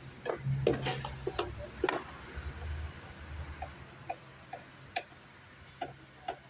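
Irregular sharp clicks and light taps, several close together in the first two seconds, then spaced about half a second apart, over a low steady hum.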